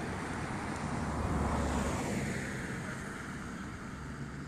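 Road traffic: a vehicle passing on the road, its noise swelling about a second and a half in and then fading.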